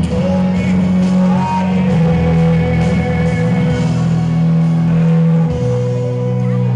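Rock music with guitar, its low notes held and changing every second or two.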